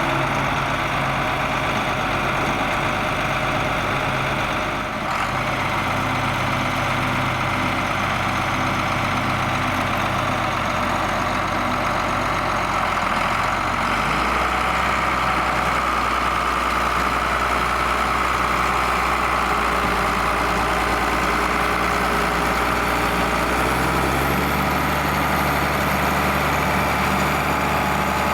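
John Deere 4850 tractor's six-cylinder turbo-diesel engine running steadily while pulling a six-furrow plough. Its note shifts to a new pitch about five seconds in, again about halfway, and once more near the end.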